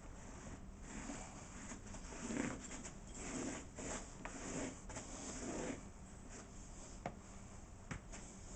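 Irregular rustling and rubbing noises in uneven bursts, with a couple of small sharp clicks near the end.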